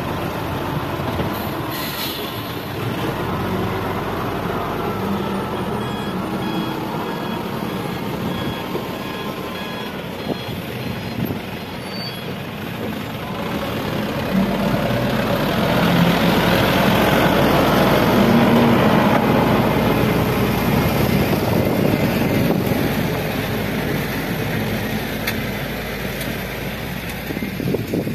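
Diesel engines of an XGMA wheel loader and a Mitsubishi Canter dump truck running, with a reversing alarm beeping repeatedly for several seconds a few seconds in as the loader backs away. From about the middle the truck's engine grows louder as the loaded truck pulls away.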